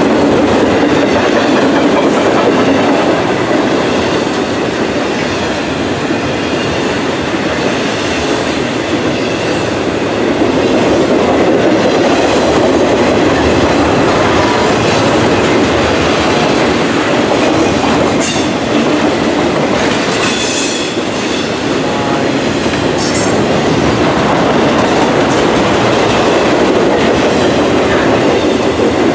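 Intermodal freight train of truck trailers on flatcars rolling past at close range: a steady rumble and clatter of steel wheels on the rails. A few brief high-pitched wheel squeals come about two-thirds of the way through.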